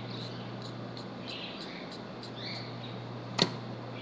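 Chalk pastel scraped on a paper towel in short, repeated scratchy strokes, with one sharp click about three and a half seconds in.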